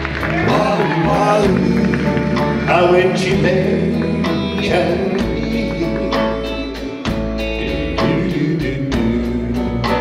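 Live band music with a man singing lead into a microphone, over electric bass and a steady drum beat.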